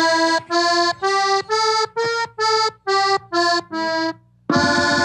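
Accordion playing the intro of a Colombian cumbia over a sound system's loudspeakers: a phrase of about nine short, separate notes, a brief pause, then a long held chord near the end.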